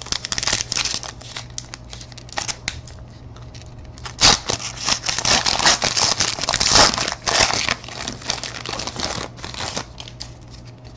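A 2013 Certified football card pack's wrapper crinkling as it is opened, with cards clicking and sliding in the hands. The crinkling is densest from about four to seven and a half seconds in.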